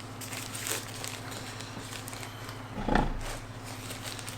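Quiet handling of packaging and drone accessories, with one soft thump about three seconds in, over a steady low hum.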